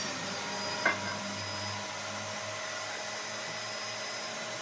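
A small electric motor running steadily, with one sharp knock about a second in.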